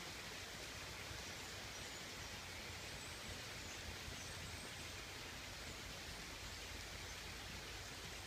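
Steady rain falling, a soft even hiss, with a few faint high chirps in the middle.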